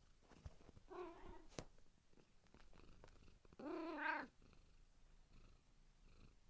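Hungry domestic cat meowing twice: a short, fainter meow about a second in, then a louder, longer meow around four seconds in, with a few faint clicks between.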